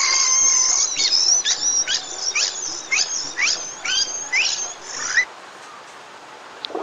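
Edited-in high-pitched squeaky sound effect: a string of quick falling chirps, about two a second, that stops suddenly about five seconds in.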